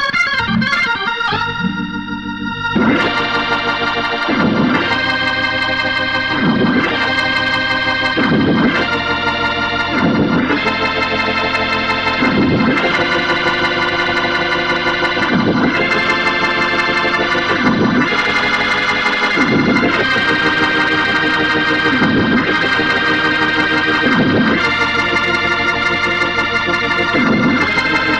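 Background music of sustained chords, with the chord changing about every two seconds; a new passage starts about three seconds in.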